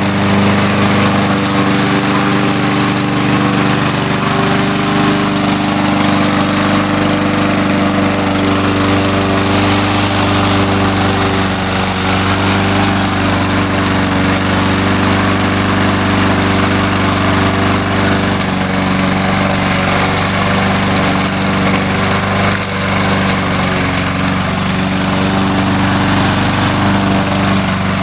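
Walk-behind push lawn mower's small gasoline engine running steadily at a constant speed.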